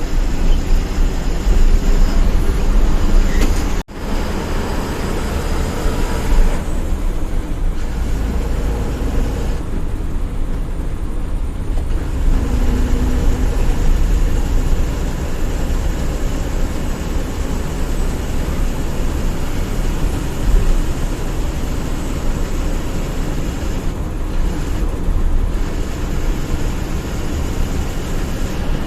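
Steady engine and road noise of a moving bus, heard from inside the cabin, with a strong low rumble. The sound cuts out for a split second about four seconds in.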